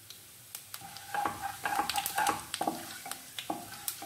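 Cumin seeds sizzling and crackling in hot oil, starting about half a second in, with a wooden spatula stirring them around the kadai.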